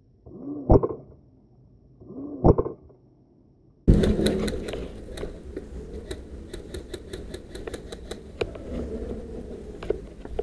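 Two single airsoft rifle shots just under two seconds apart, each a brief whir ending in a sharp snap. About four seconds in, the sound cuts to steady outdoor background noise with many small clicks and knocks of gear as the player moves.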